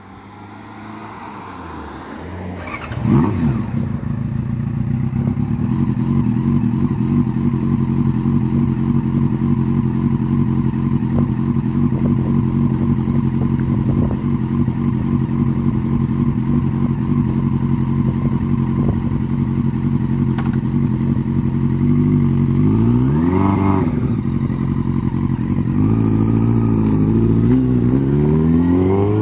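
1999 Yamaha YZF-R6's 600 cc inline-four engine being started: it turns over and catches about three seconds in, then idles steadily. Near the end it is blipped once, and it revs up as the bike pulls away.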